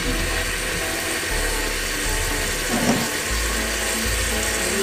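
Mutton pieces frying in oil in an aluminium pressure cooker, a steady sizzle, with a brief knock about three seconds in.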